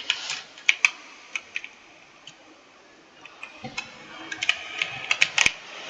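Typing on a computer keyboard: a run of irregular key clicks, a pause of about two seconds, then another run of keystrokes.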